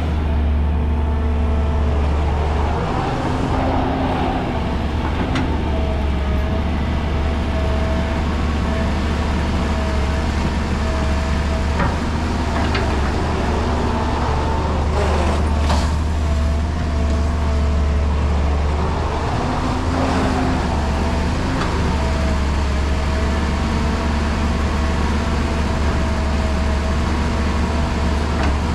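Caterpillar tracked excavator's diesel engine running steadily under load, with a hydraulic whine that rises and falls in pitch as the arm digs, swings and dumps soil into a dump truck. A few sharp knocks from the bucket and falling dirt.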